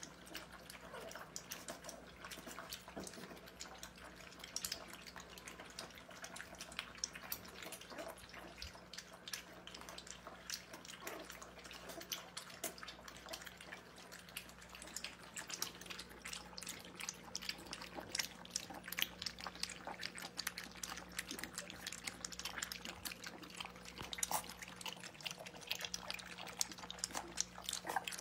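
Several Pembroke Welsh Corgi puppies lapping milk from a shared dish: a dense, irregular run of quick wet lapping clicks that grows busier in the second half.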